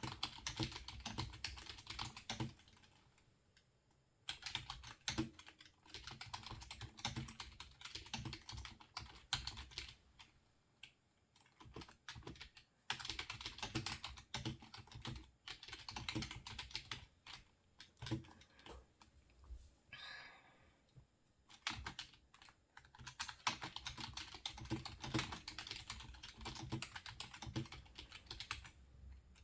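Typing on a computer keyboard in quick runs of keystrokes, broken by pauses of a few seconds. A short scrape is heard about twenty seconds in, during one of the pauses.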